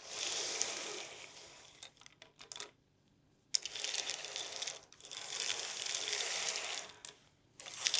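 Scrabble tiles being swirled and shuffled by hand on a table: a dense clattering rattle of many small clicks, with a few separate clicks around two seconds in, a short quiet gap about three seconds in, and another brief pause near the end.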